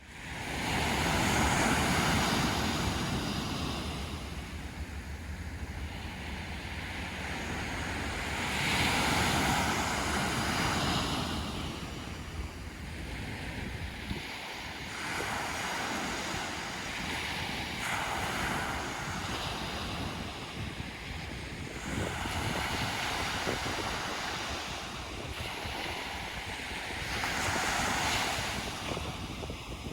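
Sea waves breaking and washing up a sandy beach, swelling in a surge every six or seven seconds, with wind buffeting the microphone in a steady low rumble.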